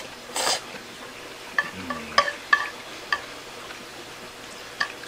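Eating sounds: chopsticks clicking against a dish of yakisoba about five times, each a short sharp tick with a faint ring, after a short rush of noise near the start.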